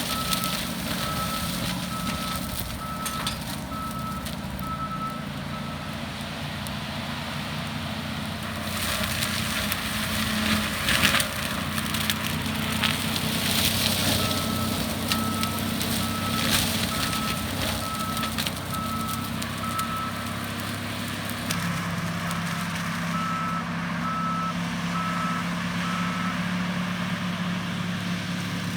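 John Deere 333G skid steer's diesel engine running hard with the forestry disc mulcher spinning, with crackling and sharp cracks of wood being shredded. Its reversing alarm beeps at a steady high pitch in three spells as the machine backs up.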